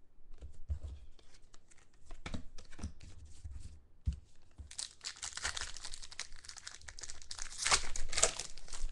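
Trading cards being handled with light clicks and taps, then a foil trading-card pack wrapper being torn open and crinkled from about five seconds in, loudest near the end.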